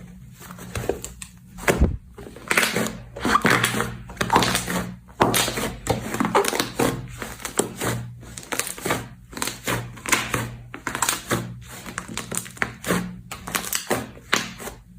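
Slime being pressed, poked and squeezed by hand: a quick run of sticky crackles and clicking pops, a couple to several a second.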